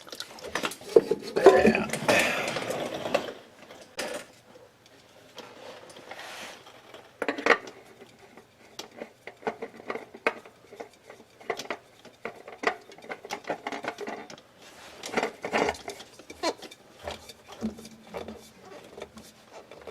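Irregular metallic clinks, scrapes and rattles of hands and tools working at the oil filter under a car during an oil change, with a louder scraping stretch about a second or two in.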